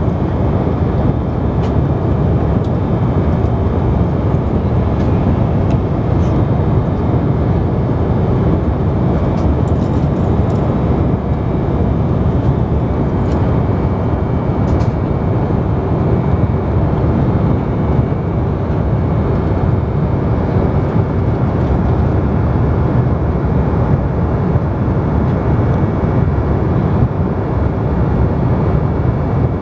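Steady in-flight cabin drone of an Embraer 190 airliner: the low rush of its GE CF34 turbofan engines and the airflow over the fuselage, heard from a window seat.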